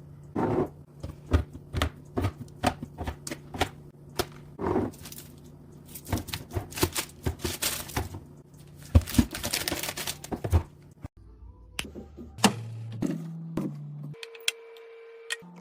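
Rapid clicks and knocks of food packages and containers being handled and set into a refrigerator, over a steady low hum. The clatter stops about eleven seconds in and gives way to a few short held tones that step in pitch.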